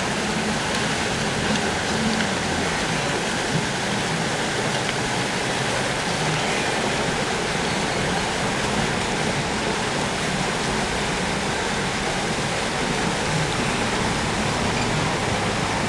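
Steady rushing and splashing of river water as a packed herd of wildebeest plunges off the bank into the river and swims across.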